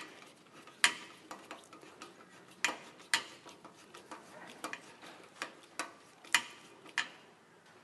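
Hand tools clicking and clinking against the bolts and brackets of a steel-wire bicycle basket as it is tightened: about ten light, irregular metallic clicks.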